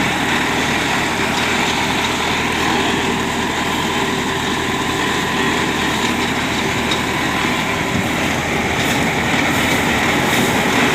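Vikas 235 baler running steadily, its machinery driven by a tractor engine.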